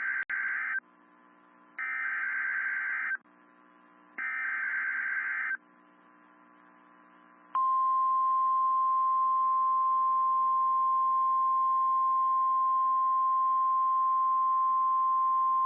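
NOAA Weather Radio Emergency Alert System signal: three harsh, screeching SAME data bursts of about a second and a half each, the digital header that announces a severe thunderstorm warning, followed after a short pause by the steady single-pitch 1050 Hz warning alarm tone, held for about nine seconds.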